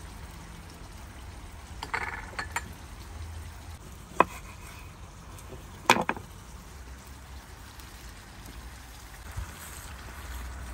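A few sharp clicks and knocks of kitchen utensils against cookware, the loudest about six seconds in, over a steady low background rumble.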